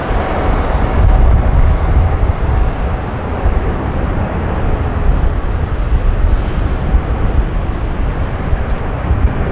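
Jet airliner landing, its engines giving a loud, steady rumble that is heaviest in the deep bass.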